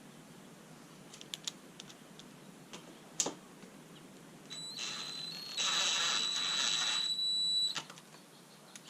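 Cordless impact driver running for about three seconds to snug down a bolt, with a steady high whine that gets louder partway through. A few light clicks and a single knock come before it.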